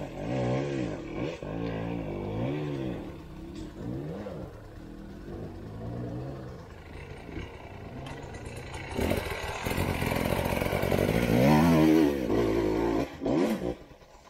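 Enduro motorcycle engine revving up and down in short, repeated bursts of throttle. It is louder for a few seconds near the end.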